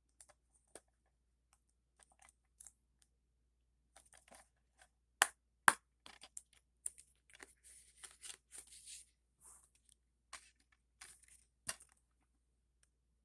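A plastic DVD case being handled and opened: scattered small clicks, two sharper snaps a little past five seconds in, then paper inserts rustling.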